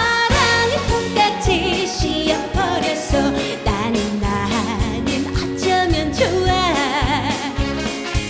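A woman singing an upbeat Korean trot song with wide vibrato, over a backing band with a steady drum beat.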